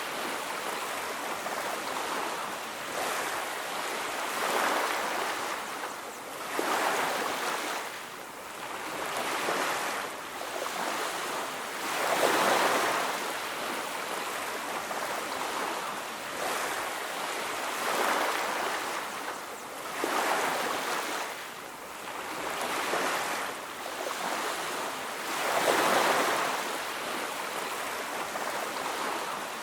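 Ocean waves breaking and washing on a beach, a continuous rush of surf that swells and fades every few seconds.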